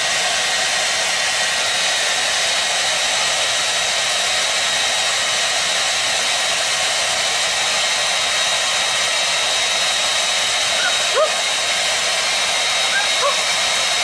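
Handheld hair dryer running steadily, an even rushing blow with a faint high whine.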